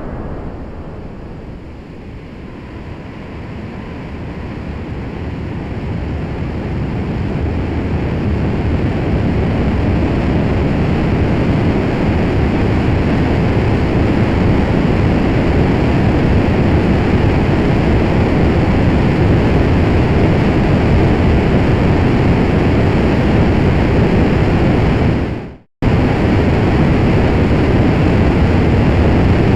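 Rocket engine sound effect: a dense, deep rumble that dips about two seconds in, then builds over several seconds and holds loud and steady. It cuts out for a split second near the end, then resumes.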